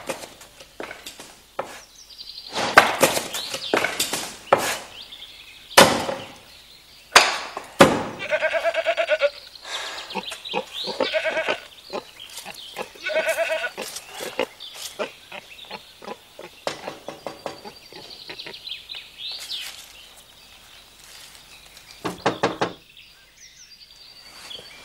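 Axe splitting firewood on a chopping block: a run of sharp chops in the first eight seconds and another pair near the end. Between them a goat bleats three times.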